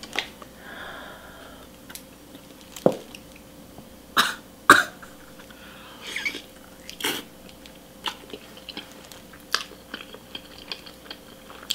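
A person biting into a sauced, grilled chicken leg and chewing, with a string of sharp, wet mouth sounds, the loudest two about four to five seconds in.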